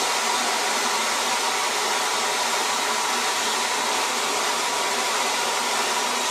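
Hair dryer blowing steadily on high heat, a constant whooshing hiss with a faint steady whine, heating a magnetic lock's adhesive to soften it.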